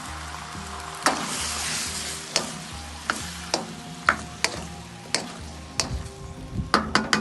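Food sizzling in a frying pan while a spatula stirs it, with about ten sharp knocks and scrapes of the utensil against the pan at irregular moments.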